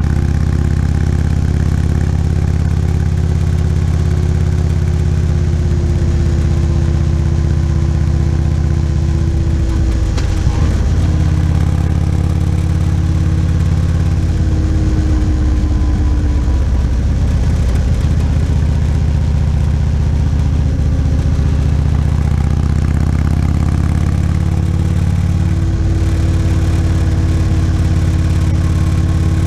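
Motorcycle engine running steadily on the road, with a continuous rush of ride noise. The engine note changes about ten seconds in and again near the end.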